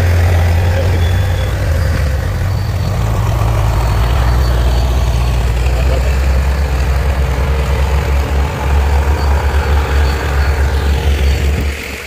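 Diesel engine of a Ford-based County four-wheel-drive tractor running under load as it pulls a reversible plough through stubble, a loud, deep steady drone. About three-quarters of the way through the note turns uneven and pulsing, and it falls away just before the end.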